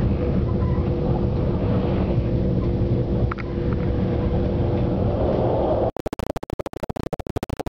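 Steady rumble of a moving passenger train heard from inside, with a steady hum over it. About six seconds in, the sound breaks up into rapid clicks and dropouts for about two seconds, a recording glitch.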